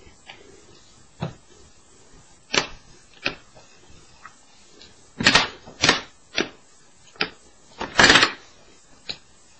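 Short clicks and knocks of a square clay cutter and an acrylic block being set down and pressed on a hard work surface while cutting squares from a sheet of polymer clay, about nine in all, with two longer, louder clatters about five and eight seconds in.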